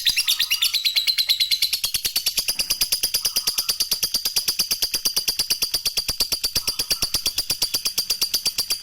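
Lovebird 'ngekek': one long, unbroken chatter of fast, high-pitched repeated notes, about ten a second, with no pause for breath. The sustained ngekek run is the trait keepers prize in a bird in full song (gacor).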